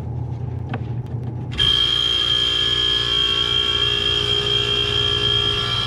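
True T-23F reach-in freezer's compressor kicking on after a click about a second and a half in, then running loud and steady with a high whine over a lower drone. This is the start-up noise the technician puts down to the compressor starting to go out, a little weak, with the system charged slightly under.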